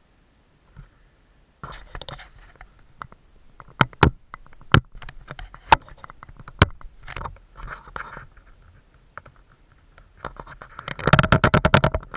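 Camera and mount on a motorcycle being jostled: scattered sharp clicks and knocks with short scraping rattles. About a second before the end comes a fast run of clicks, roughly ten a second.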